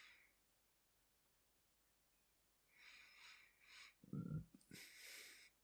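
Near silence with a few faint breaths close to the microphone and a brief low sound about four seconds in.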